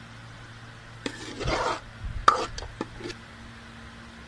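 A spoon scraping and clicking against the pan and glass dish as thick melted khoya is spooned onto sweet vermicelli: one short scrape about a second and a half in, then a handful of sharp clicks and knocks, the loudest just after two seconds. A steady low hum runs underneath.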